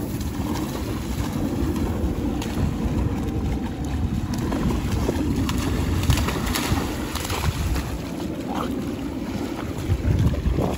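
Wind rumbling steadily on the microphone, with water splashing as a standard poodle wades and bounds through shallow sea water, louder splashes about six seconds in and again near the end.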